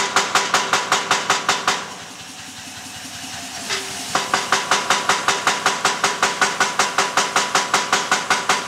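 Anyang 15 kg pneumatic forging hammer running, its ram striking the die in rapid, even blows about four a second. The blows stop after about two seconds, leaving a steady hum, then start again about two seconds later and keep going.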